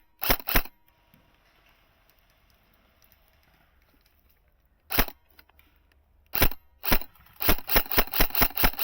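Airsoft guns firing: two sharp shots right at the start, three more spaced out from about five seconds in, then a quick string of shots, about six a second, near the end.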